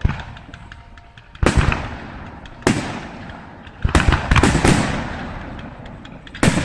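Fireworks display: sharp bangs of fireworks bursting, one at the start, one about a second and a half in, one near three seconds, a quick run of several around four seconds and another near the end, each trailing off as it echoes.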